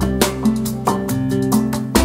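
Background music led by a strummed acoustic guitar over a bass line, with a steady beat.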